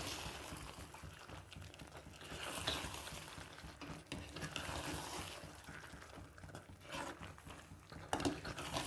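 A spatula stirring boiled penne pasta through thick white sauce in a kadhai: soft, irregular wet stirring with a few light scrapes and clicks against the pan.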